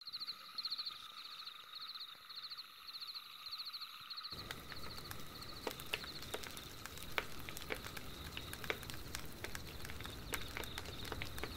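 Crickets chirping in a steady, repeating pattern about twice a second. From about four seconds in, a campfire crackles over them, with scattered sharp pops.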